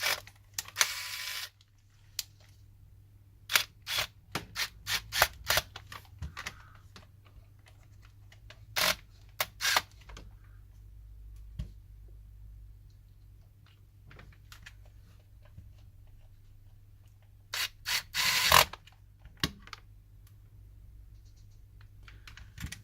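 Small screws being driven into a PS4 controller's plastic back shell and the controller and screwdriver being handled: scattered sharp clicks and taps of plastic and metal, with a quick run of clicks a few seconds in and another cluster about three-quarters of the way through.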